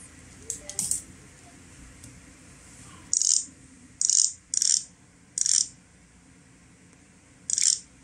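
A fingertip brushing and tapping on a Nubia Alpha smartwatch's touchscreen: a few light handling clicks, then five short, hissy high-pitched brushes from about three seconds in.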